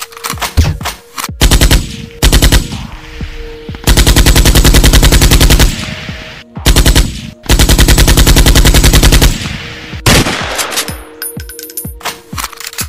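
Bursts of rapid automatic gunfire, several short strings and two long ones about four and eight seconds in, over a faint steady tone.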